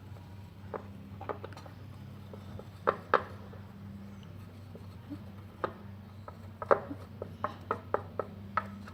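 A stirring stick knocking and scraping against the container while a glue-and-soap slime mixture is stirred: irregular taps and clicks, sharpest about three seconds in and in a quick run of taps between about seven and eight and a half seconds, over a steady low hum.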